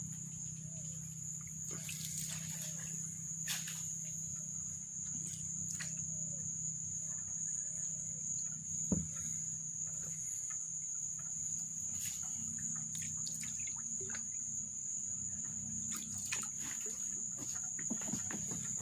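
Steady high insect buzz from the flooded forest. Over it are drips, light splashes and knocks as a gillnet is paid out from a wooden canoe, with one sharper knock about nine seconds in.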